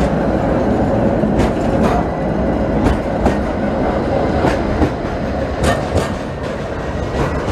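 Electric tram passing close by, its wheels running with a steady rumble and clicking in pairs as they roll over rail joints.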